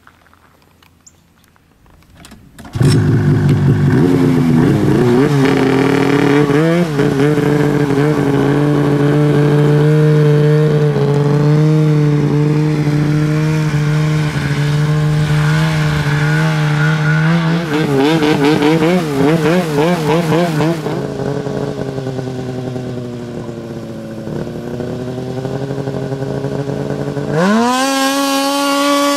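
Arctic Cat 800 snowmobile's two-stroke twin engine through a Speedwerx L2 lightweight competition muffler, starting suddenly after about three quiet seconds and running loud, its pitch wavering twice, then revving up sharply to a higher pitch near the end as the sled accelerates.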